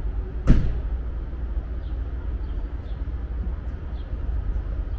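A single sharp bang from the standing Amtrak Superliner train about half a second in, ringing briefly as it dies away, over a steady low rumble.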